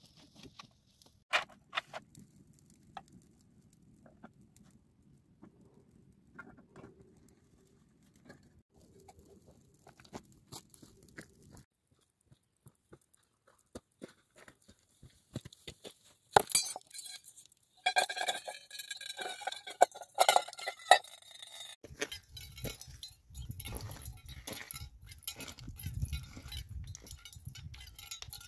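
Scattered knocks and scrapes on rock. Midway comes a run of sharp metallic clinks with a ringing tone, as a metal cup and pot are handled against stone, followed by steady light clicking and knocking.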